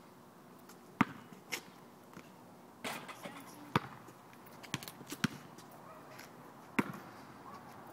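Basketball bouncing on asphalt: about seven sharp, unevenly spaced bounces, the loudest about a second in.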